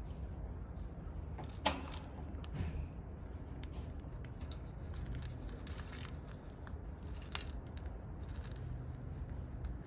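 Pet lovebirds' small clicks and scratches, with a sharp click about one and a half seconds in and a lighter one near seven and a half seconds.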